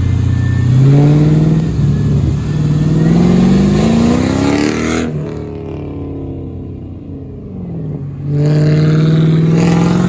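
2004 Mercedes CLK500's 5.0-litre V8, straight piped from the secondary catalytic converters back, climbing in revs under throttle for about four seconds, then lifting off with the revs and loudness falling away, and pulling up again near the end.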